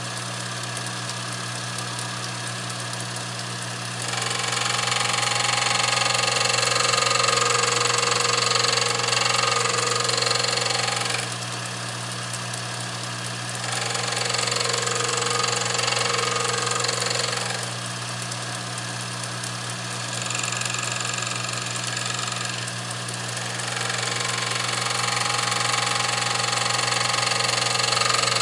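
Small grinding wheel of a homemade radius-grinding attachment on a lathe running with a steady hum, as a form tool is swung against it by hand. Four times the grinding noise rises and grows harsher for several seconds while the tool cuts, easing back to the hum between passes.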